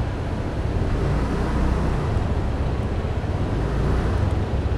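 Steady low rumble of vehicle traffic and engines, with no single sound standing out.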